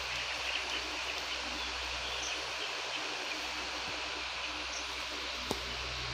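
Steady din of a flock of young broiler chicks peeping, a dense high chatter with a low hum underneath. A single sharp click about five and a half seconds in.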